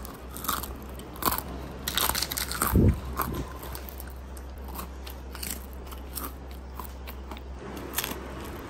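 Crisp deep-fried katori cup filled with chicken chaat crunching as it is broken apart. There are several sharp crunches in the first three seconds, then softer crackling, and one more crunch near the end.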